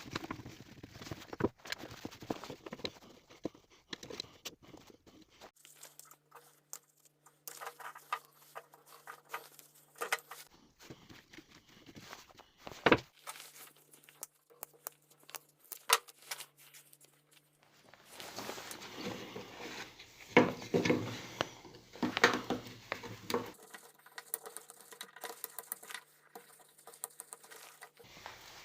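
Hands working on an old power drill's parts at a workbench: scattered clicks, taps and knocks of small metal and plastic pieces, with a single sharp knock near the middle and a louder stretch of scraping and rattling about two-thirds of the way through.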